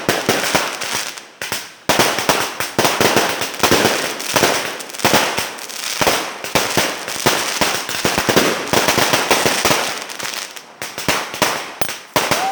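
Fireworks going off: a dense, unbroken run of sharp pops and crackles, easing briefly about two seconds in and again near the end.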